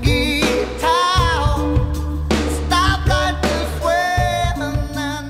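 Background music: a song with a singing voice over a band, with a steady bass line.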